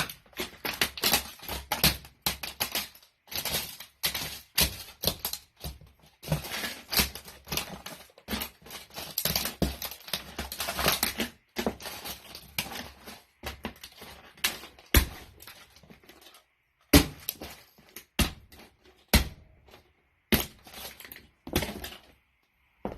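Toy car crushed under boots: dense cracking and crunching through the first half, then separate sharp cracks and knocks with short pauses between them.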